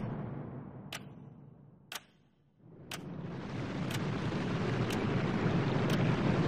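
A sharp, clock-like tick once a second over a low rumbling noise that fades almost to silence about two and a half seconds in, then swells back up.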